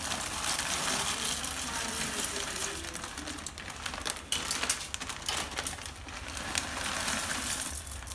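Plastic bag of dry fusilli pasta crinkling as it is shaken out into a pot of boiling water, with many small crackles over a steady hiss.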